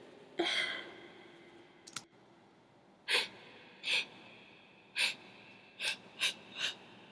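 A person sniffing and breathing sharply through the nose: one breathy sound near the start, then six short quick sniffs over the last four seconds.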